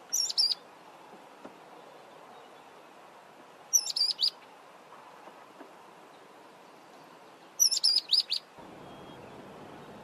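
Mousebird calling: three short bursts of high, quick whistled notes, about four seconds apart, each of three to five notes.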